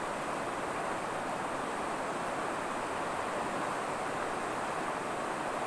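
A fast, shallow river rushing over stones and rapids: a steady, even rush of water.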